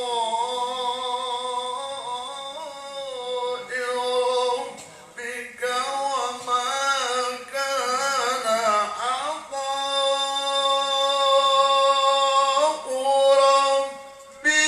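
A male qari's melodic Quran recitation (tilawah) into a handheld microphone: one voice holding long notes with winding ornaments, with a breath break about five seconds in and another near the end.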